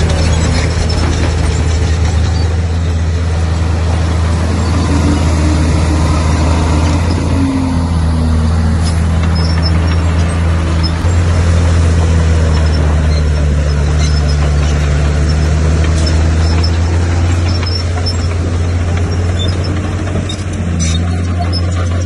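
Komatsu bulldozer's diesel engine running steadily with a deep drone, with a faint squeal that slides in pitch about a third of the way in.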